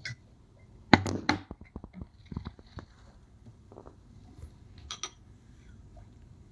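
Utensils clinking against a dish or jar while canned yellow peaches are spooned out. There is a sharp clink about a second in, then a quick run of lighter taps and scrapes over the next two seconds, and a double clink about five seconds in.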